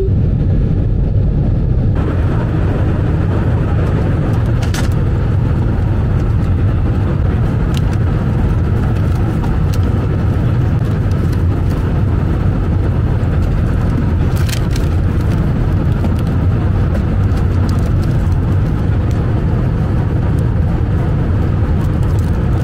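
Steady loud drone of an airliner cabin: jet engines and rushing air. A couple of brief clicks or rustles about 5 and 14 seconds in.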